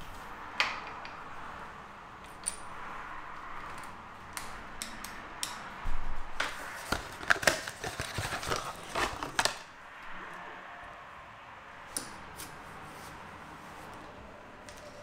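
Hands opening a cardboard box of handlebar grips and taking them out: a run of rustling and knocks in the middle, loudest part, with scattered single clicks of small parts being handled before and after.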